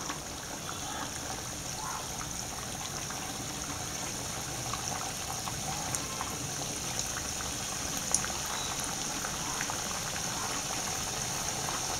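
Filled Makanbeda dough balls deep-frying in hot oil: a steady sizzle and bubble with a few faint pops.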